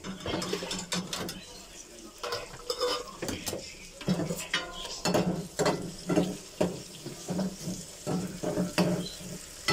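Aubergine slices sizzling in oil in a frying pan on a gas stove. A metal lid is lifted off with pan tongs near the start, and then a steel ladle scrapes and clinks against the pan as the slices are stirred, in many short knocks.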